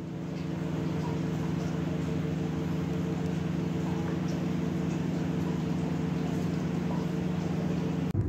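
A steady low mechanical hum with several constant tones over a faint hiss, cutting off just before the end.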